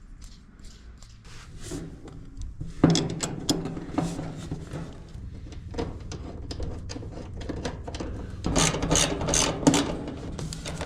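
Dryer idler pulley and its metal arm being handled and spun by hand: irregular clicks and rattles of metal parts, busiest near the end. The pulley's bearing, freed after being stuck, turns but not totally freely.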